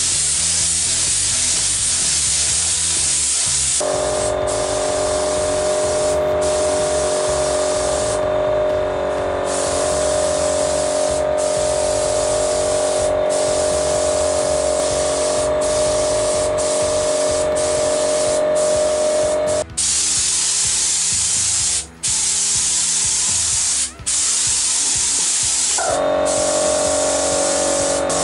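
Paint spray gun hissing in long passes, broken several times by short gaps where the spray stops for a moment.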